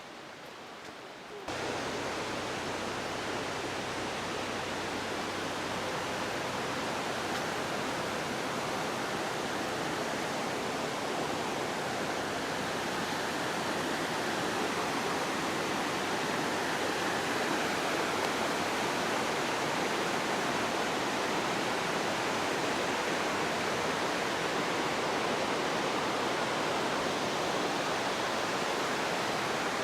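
Steady rushing road and wind noise of a moving car, with a faint low hum under it. It starts abruptly about a second and a half in and grows slightly louder.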